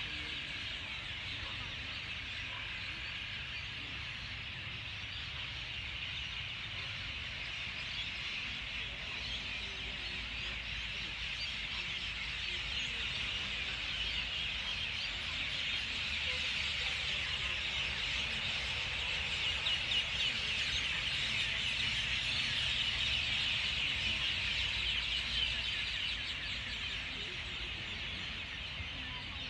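A racket of many birds calling at once, a dense, continuous chatter of overlapping calls that swells louder past the middle and eases off near the end.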